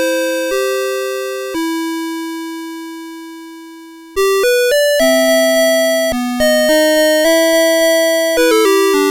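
Electronic alarm melody of a CITIZEN Melody Box 30 series alarm clock playing a tune in bright, bell-like electronic tones, each note struck and fading. One long note fades over about two and a half seconds before a quicker run of notes resumes the tune.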